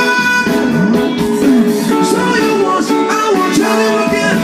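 A song with guitar and singing played loud through large loudspeakers.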